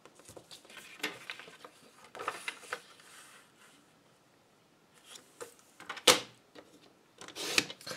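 Cardstock being shuffled and slid into place on a Stampin' Up! paper trimmer. About six seconds in, the blade housing clicks down sharply, and a short rasp follows as it slides along to cut the sheet.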